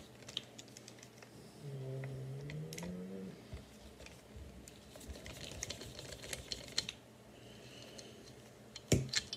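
Screwdriver backing the long slot screw out of a Henry .22 rifle's barrel band: scattered small metallic clicks and taps, with a sharper knock about nine seconds in. A short low hum rises in pitch about two seconds in.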